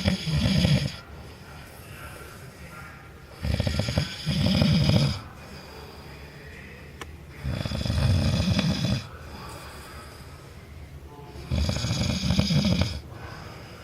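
A man snoring loudly in a steady rhythm, one long snore about every four seconds with quieter breathing between.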